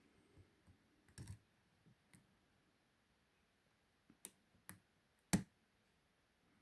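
Faint, scattered clicks of a lock pick and tension tool working the pins inside a Ruma 50 mm padlock, about half a dozen in all, the sharpest about five seconds in.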